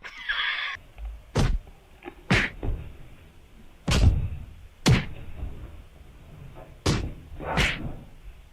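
A series of dull thumps or knocks, about seven, spaced unevenly over several seconds.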